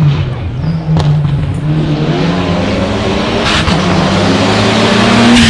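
Rally car engine running hard, its pitch climbing steadily through the second half as it accelerates, with a sharp crack about a second in.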